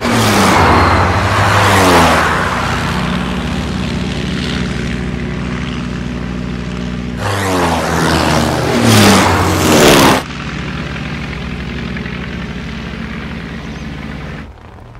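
Piston-engined WWII fighter plane flying low past, its engine note dropping in pitch as it goes by. There is a second, louder pass about seven seconds in, with a steady engine drone in between. The sound cuts off shortly before the end.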